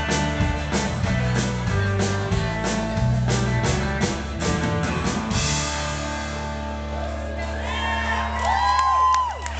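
Live band of electric and acoustic guitars, bass and drums playing the closing bars of a song: the drumbeat stops about five seconds in and a chord is held ringing, with whoops and shouts from the audience near the end.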